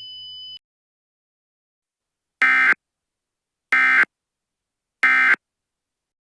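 A steady high electronic tone cuts off just after the start, then three short, identical raspy data bursts about 1.3 s apart: the Emergency Alert System end-of-message (EOM) SAME code, signalling the end of the alert.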